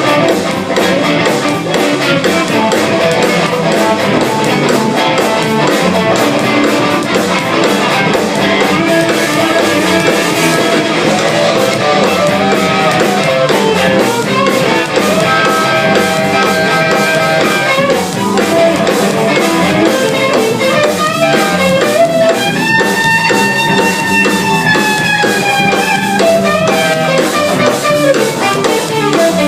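Live band jamming: guitar and drum kit playing. About two-thirds of the way through, a long lead note is held, swaying slightly in pitch.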